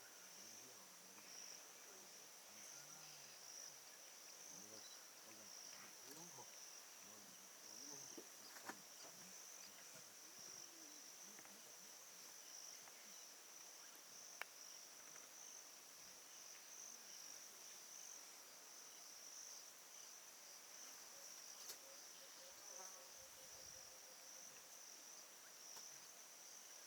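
Faint, steady high-pitched drone of insects, with a few soft clicks.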